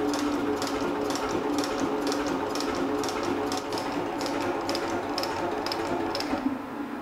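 Elliott 10M metal shaper taking a light skim cut across an aluminium cylinder head. A steady motor and gear hum runs under a regular scraping stroke of the cutting tool, about two a second. The strokes stop near the end.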